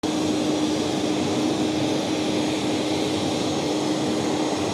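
Jet aircraft engine noise: a steady, even rush with a constant hum running through it.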